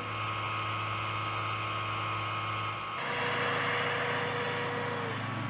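Aircraft de-icing truck's engine running steadily, a low hum with a steady whine over it. The sound changes abruptly about three seconds in.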